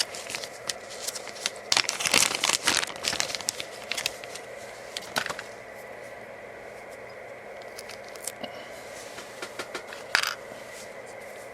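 Close-up hand handling of a small electronic meter's circuit board and plastic parts: a flurry of clicks, scrapes and crinkling for the first few seconds, then scattered light ticks, with a short rustle about ten seconds in.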